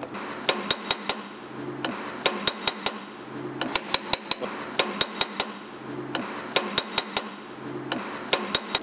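Light hammer taps driving a part down into a 1985 Rolls-Royce Corniche water pump housing, in short runs of four or five sharp strikes with brief pauses between.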